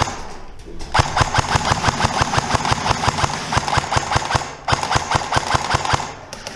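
Airsoft AK5C electric rifle firing on full auto: a rapid, even clatter of shots in two long bursts, the first starting about a second in and the second following after a brief pause.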